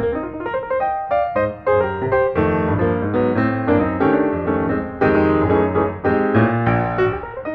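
Background music: a piano playing a steady run of notes.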